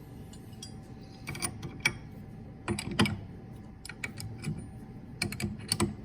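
Irregular clicks and light metallic clatter from handling tools and parts while the end mill in a CNC machine's spindle is being changed, coming in short clusters about a second and a half, three seconds and five and a half seconds in.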